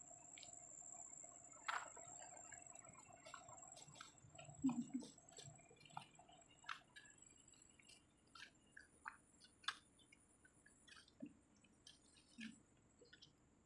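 Near silence: faint, irregular clicks and ticks over a steady high-pitched whine.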